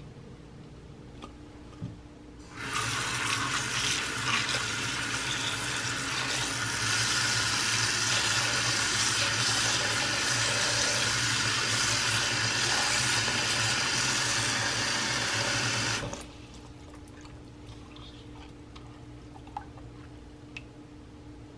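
Kitchen faucet running, its stream falling onto fruit in a bowl held in a stainless steel sink; turned on a few seconds in and shut off about three quarters of the way through. Before and after, only a quiet room hum with a few small clicks.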